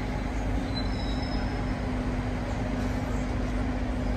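Steady road traffic noise with a constant low engine hum and a deep rumble.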